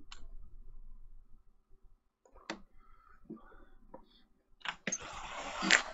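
Faint scattered clicks over a low room rumble. About a second before the end, a louder rasping, rubbing noise starts.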